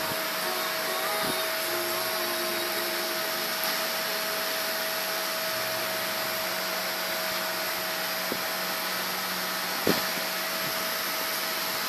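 A small motor running steadily with a whirring rush and a thin steady whine, with one short knock about ten seconds in.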